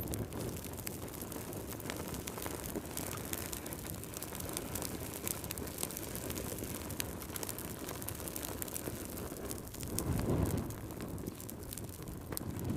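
Wood fire crackling: many small sharp pops and snaps over a steady low rumble of burning, with the rumble swelling briefly about ten seconds in.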